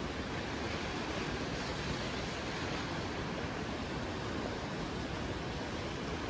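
Steady rushing noise of wind and sea surf, even and unbroken.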